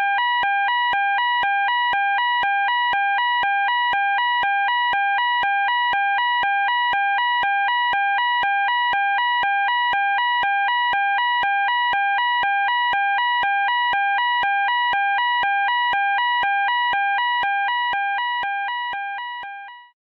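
Electronic fire alarm sounding a two-tone warble, switching rapidly back and forth between a lower and a higher pitch, about four changes a second. It fades out over the last few seconds.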